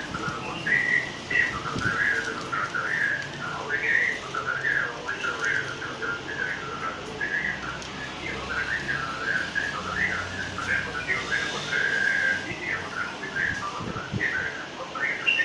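A person whistling a wandering tune, one clear note sliding up and down almost without a break.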